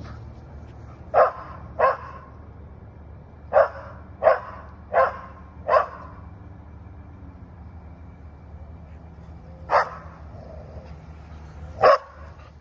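Standard Schnauzer barking at a hot air balloon overhead: loud single barks, two, then four in quick succession, then two more spaced out near the end.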